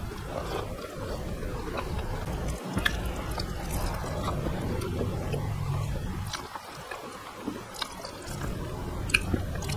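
Close-miked chewing as a man eats rice by hand, with soft squishing of fingers mixing rice on the plate. A few small clicks are scattered through, several near the end.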